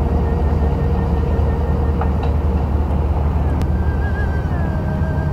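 Steady low engine rumble of a trap-fishing boat passing close to the breakwater.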